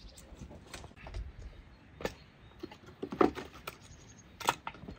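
Pieces of split firewood knocking and clattering together as they are handled, in irregular sharp knocks, the loudest a little past three seconds in and another near the end.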